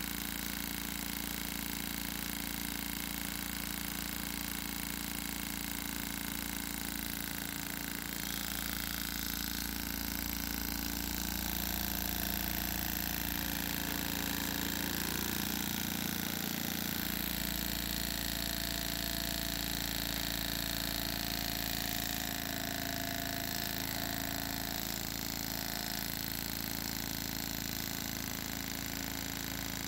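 Gasparin GM 120 CO2 model-aircraft engine running on gas from a hand-held CO2 tank and spinning its propeller: a steady mechanical buzz. It gets slightly louder about eight seconds in and eases back around two thirds of the way through.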